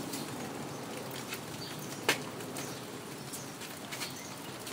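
Quiet background hiss with scattered faint short high chirps or ticks, and one sharp click about two seconds in.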